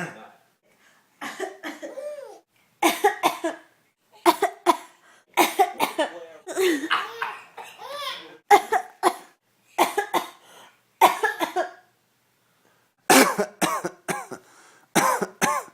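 A person coughing in repeated clusters of two or three sharp coughs, with a baby laughing in short bursts between them.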